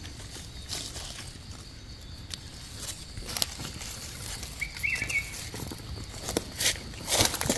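Dry leaf litter rustling and crackling in scattered bursts as mushrooms are pulled from the forest floor and the picker shifts through the undergrowth, loudest near the end. A short bird chirp comes about five seconds in.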